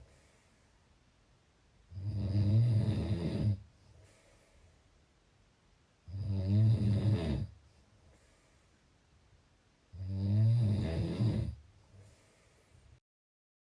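A person snoring: three loud, low, rattling snores about four seconds apart, each lasting about a second and a half, with only faint breath sound between them.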